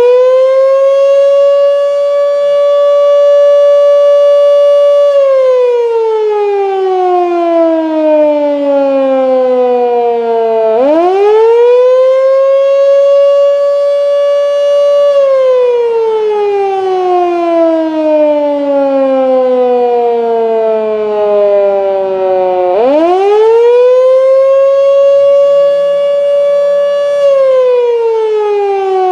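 Federal Signal / Sign & Signal Canadian Model 2 electromechanical fire siren sounding its fire signal wail. It winds up quickly and holds a steady high tone for about four seconds, then slowly falls for about six seconds. It winds up again twice, about every twelve seconds.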